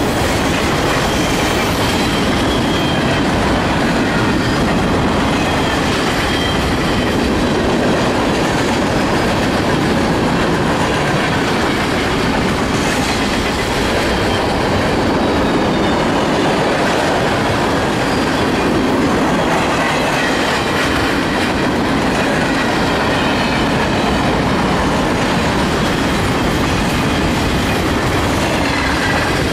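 Freight train of boxcars, tank cars and covered hoppers rolling past, its wheels running on the rails with a steady, loud noise.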